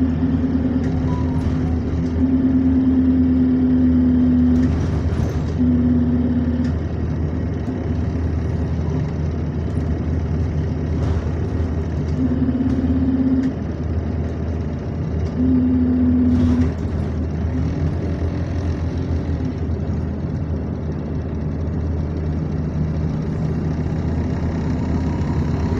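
Bus diesel engine running with a steady low hum, heard from inside the bus. Its loud engine-driven air compressor drones at one steady pitch, coming in for several spells of one to two seconds.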